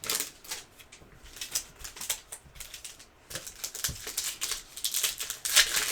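Hoops basketball card packs being torn open and the cards handled: a quick run of small crinkles and clicks, busier near the end.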